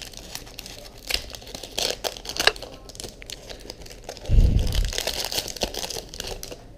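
Foil Pokémon booster pack wrapper crinkling in the hands and being torn open, with crackles throughout. A dull low thump about four seconds in is the loudest sound.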